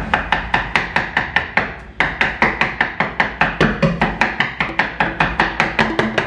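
A stainless steel cup knocking rapidly and rhythmically into kneaded rice-flour dough in a clay bowl, about five or six strikes a second, pounding puttu dough into fine crumbs for steaming.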